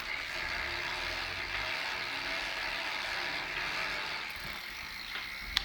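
A Sturmey Archer X-RK8 (w) 8-speed internal gear hub turning in sixth gear with a continuous ratcheting rattle that sounds like freewheeling. The owner takes this for a fault; the dealer insists it is normal. A single sharp click comes near the end.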